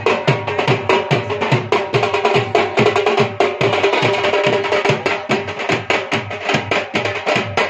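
Live band drums beaten with sticks in a fast, steady rhythm, with a held melody tone running under the beat.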